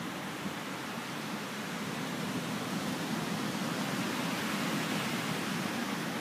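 Ocean surf breaking and washing up a sandy beach: a steady rushing noise that swells a little in the middle.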